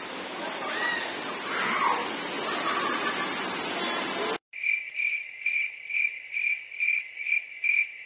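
Steady rushing of the waterfall's water, which cuts off abruptly about halfway through. A cricket then chirps in evenly spaced pulses, about three a second, with nothing behind it.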